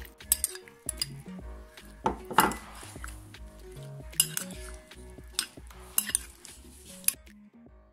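Metal spoon clinking and scraping against a cut-glass bowl as chopped fruit is stirred, in irregular strikes with a louder cluster about two seconds in. The clinks stop shortly before the end, and soft background music runs underneath.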